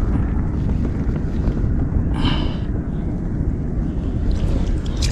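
Wind rumbling on the microphone, steady throughout, with a brief hiss about two seconds in and a sharp click near the end.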